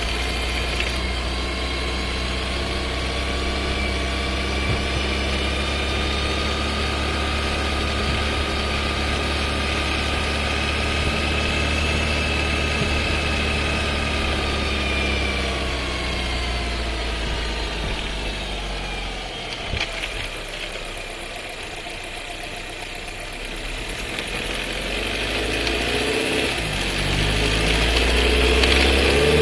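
Skoda Scala's 1.5 TSI engine and DQ200 seven-speed dry-clutch DSG heard from inside the cabin while driving: the engine note rises, then falls as the car slows, with a loud downshift about two-thirds of the way through. The noise then builds again as the car pulls away. The loud shift is the fault the owner is complaining of in this new car's transmission.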